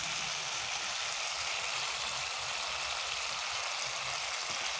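Tomato and jaggery chutney frying in mustard oil in an iron kadai: a steady, even sizzle.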